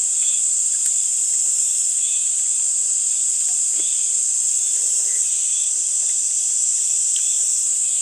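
A steady chorus of insects, crickets or similar, holding one high, unbroken trill, with fainter lower chirps repeating about once a second.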